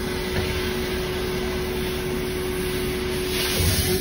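Oxy-fuel cutting torch hissing as it burns through the ship's steel lashing rods, over a steady hum. The hiss grows louder near the end.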